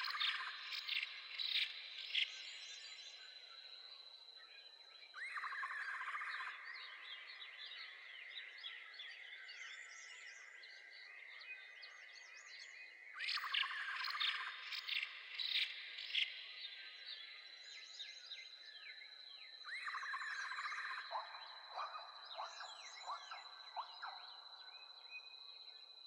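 Woodland ambience of many birds chirping in short, quick calls over a steady, thin, high insect drone. A buzzy trill comes in lower down about every seven seconds and lasts a second or two.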